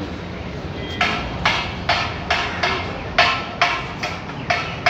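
Repeated sharp knocks at an even pace of about two a second, beginning about a second in, over steady street background noise.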